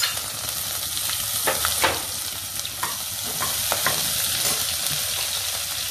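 Green chillies, fenugreek seeds and ajwain sizzling in hot mustard oil, a steady frying hiss, while a perforated metal spatula stirs them, with a few scrapes and clicks against the pot.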